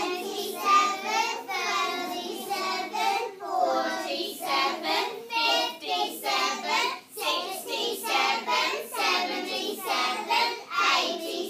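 A class of young children chanting numbers aloud together in a sing-song unison, counting by tens in a steady rhythm.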